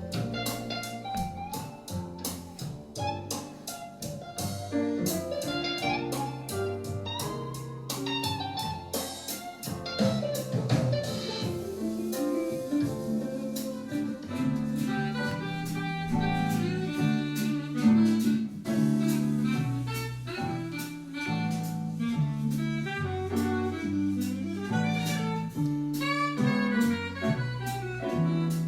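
Instrumental music with a steady beat and a moving bass line, played through a Bose Smart Soundbar 700.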